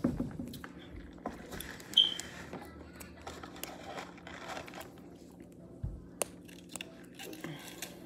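Small metal clicks and scrapes as wire clothespin springs are handled and hooked together by hand, with one sharper metallic click about two seconds in and a soft low thump near six seconds.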